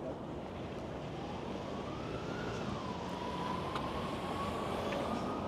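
A faint emergency-vehicle siren wailing over steady city street noise. Its pitch rises slowly and falls once, then holds nearly level.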